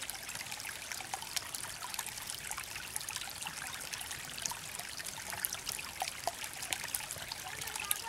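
Shallow forest creek trickling over stones: a steady light babble of running water, dotted with many small drips and plinks.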